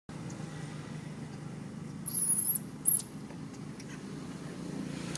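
Baby long-tailed macaque giving two very high-pitched, wavering squeals, a longer one about two seconds in and a short one just after, over a steady low hum.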